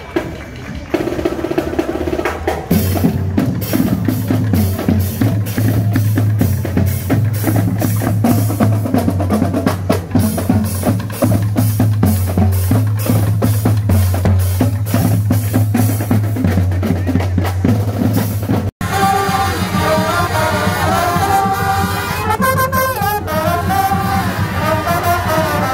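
Marching band drum line of snare, tenor and bass drums playing a fast, driving cadence with heavy bass-drum beats. About 19 s in, after a brief dropout, brass comes in playing a melody over the drums.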